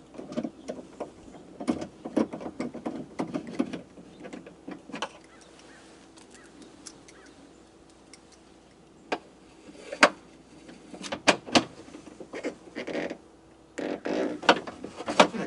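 Hands working inside a truck door, threading a nut onto the door-handle bolt: scattered small clicks, taps and rustling, with a few sharper metallic clicks about two-thirds of the way through.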